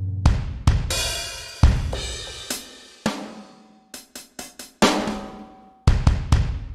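Sampled drum kit from the Hybrid Militia Kontakt library played one hit after another: heavy drum and cymbal hits, each ringing out, with a quick run of five short hits about four seconds in.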